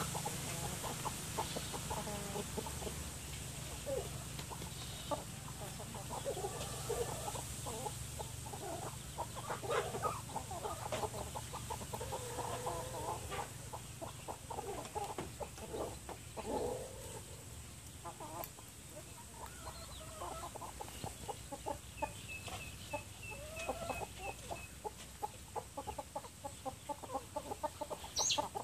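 Chickens clucking on and off, many short calls, with a short run of high peeps past the middle and a low steady hum underneath.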